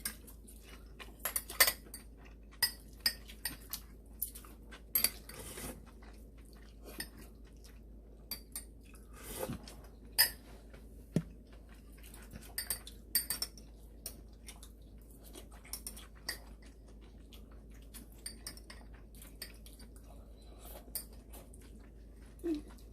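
Cutlery clinking and tapping against bowls and dishes while people eat a meal, in irregular sharp clinks, some ringing briefly.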